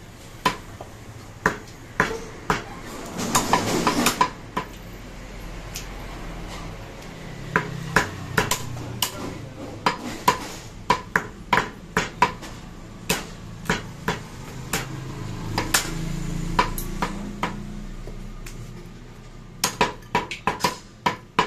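Cleavers chopping goat meat on a wooden tree-trunk chopping block: sharp, irregular knocks, sometimes in quick runs. A short rushing noise comes about three seconds in.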